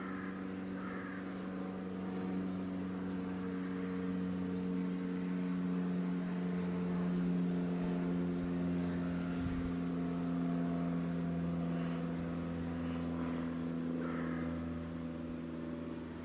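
A steady mechanical drone at an even pitch, like a running engine, growing a little louder toward the middle and easing off near the end. A few faint bird calls come over it.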